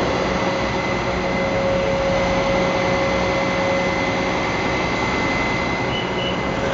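Magirus aerial ladder truck running steadily with its ladder extended, a constant engine drone with a steady whine held over it.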